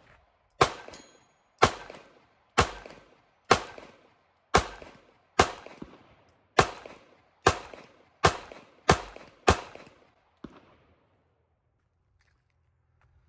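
Springfield Hellcat 9mm micro-compact pistol fired eleven times at a steady pace of about one shot a second, the last few coming quicker, emptying a magazine extended by three rounds. A fainter click follows about a second after the last shot.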